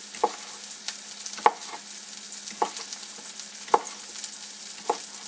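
A chef's knife slicing a hot link sausage, tapping the plastic cutting board about once a second, over the steady sizzle of onions and mushrooms sauteing in butter.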